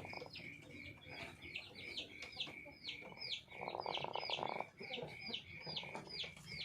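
A chicken with a respiratory cold ('ngorok pilek') snoring as it breathes: a rasping, rattling sound in spells about a second long, twice. Under it, a rapid high chirping repeats several times a second.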